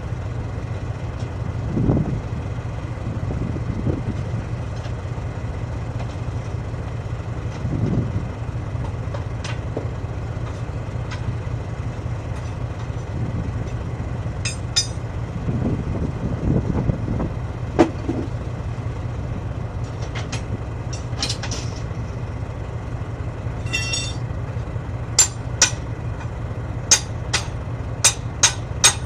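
Heavy engine idling steadily, with a few dull thumps and sharp metal clinks and strikes of tools on steel that come quickly one after another near the end.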